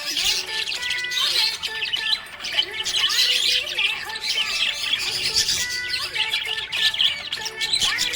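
Budgerigars chirping and chattering without a break, a dense stream of rapid high chirps and squawks, over steady background music.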